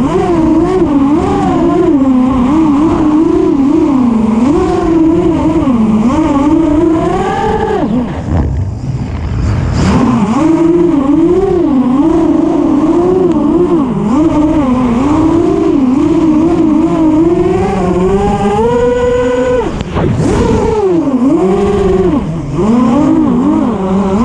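FPV quadcopter's motors and propellers whining, the pitch rising and falling constantly with the throttle. Twice the pitch climbs high and then drops away as the throttle is cut for a moment, about a third of the way in and again near the end, before the whine picks up again.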